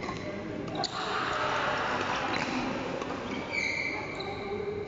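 Badminton rally in a reverberant hall: sharp racket strikes on the shuttlecock about a second in and again a little after two seconds, then a short high squeak near the end as play stops.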